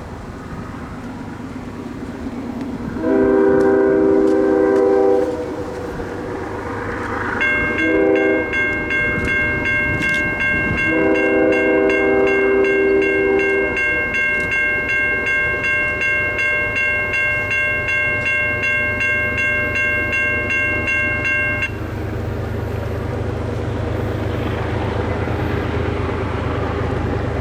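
Freight diesel locomotive's air horn sounding a long, a short and a long blast, the close of the grade-crossing signal, with the locomotive bell ringing steadily from about 8 seconds in until about 22 seconds in. After the bell stops, the rumble of the GE ES40DC-led train grows as it draws near.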